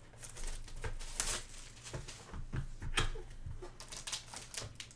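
A cardboard trading-card hobby box being handled and opened, with its sealed foil packs inside rustling and crinkling: a string of short scrapes and rustles, the loudest about a second in and again about three seconds in.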